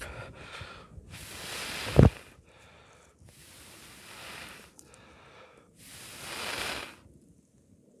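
A person blowing hard on campfire embers to fan them back into flame: three long breaths, each swelling and then stopping, with quieter inhalations between. The first blow ends in a loud low thump about two seconds in.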